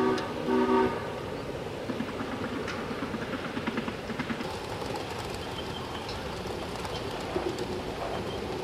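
Ride-on miniature railway train rolling along its track, the wheels rattling and clicking steadily. In the first second a multi-note horn sounds a short last blast and cuts off.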